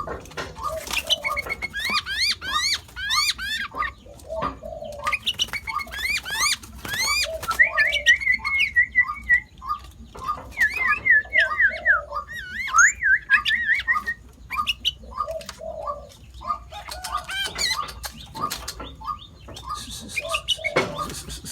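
Sooty-headed bulbul singing a varied song of rising whistled sweeps and warbling trills, the mixed phrases that the bird gives when imitating other species. Under it runs a steady series of short repeated notes, about two a second.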